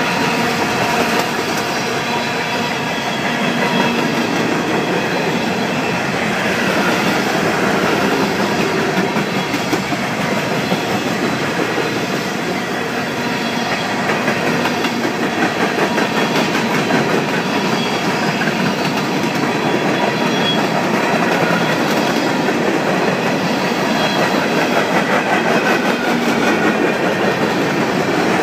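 Freight train cars rolling past close by: the steady rattle and rumble of steel wheels running over the rails, with clickety-clack from the rail joints.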